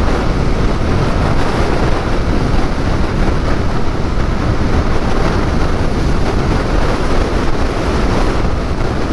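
Loud, steady wind rush and buffeting on the microphone of a motorcycle at motorway speed. It comes from strong crosswind and turbulence around the rider's helmet behind the F800GT's short screen, and it drowns out the engine.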